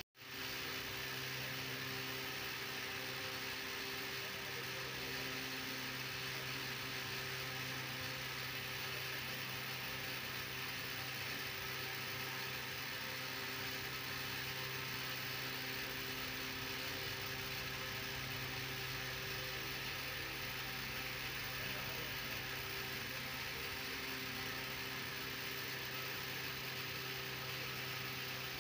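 Steady machine hum with a constant hiss and a few steady low tones, starting after a split second of silence.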